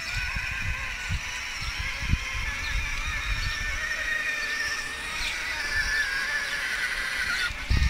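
Battery-powered children's ride-on toys driving on pavement, their electric motors giving a steady whine that wavers slightly in pitch.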